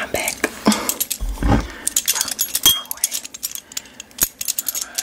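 Close-miked clicks and clinks of a glass bottle being picked up and handled, with a short ringing glass clink near the middle and a soft low thump about a second and a half in.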